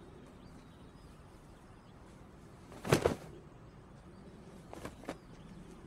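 Faint bird chirps over a quiet outdoor background, with a sharp double swish of quick arm and clothing movement about three seconds in and two softer swishes near the end.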